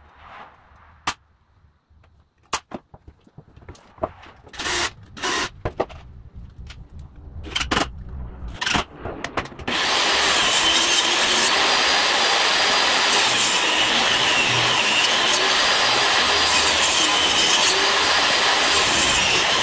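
A pneumatic brad nailer firing a series of sharp shots into wood. About halfway through, a DeWalt jobsite table saw starts running and cuts through the sides of a closed wooden box, its motor whine dipping and recovering as the blade loads in the cut.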